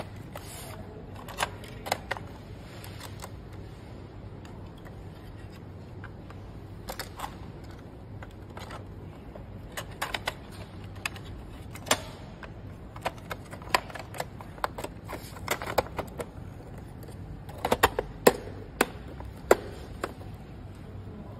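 Irregular clicks and taps of hands handling a projector's plastic chassis, fans and wiring as it is taken apart, with a run of sharper clicks near the end over a low steady hum.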